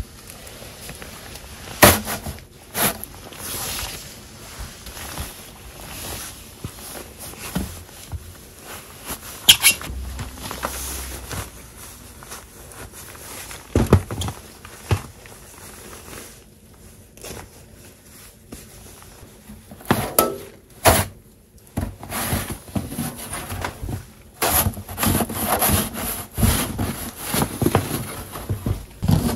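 Scattered knocks, rustles and footsteps of someone climbing out through a window and handling a metal snow dump shovel in deep fresh snow. Near the end comes a denser run of crunching and scraping as the shovel is pushed into the snow.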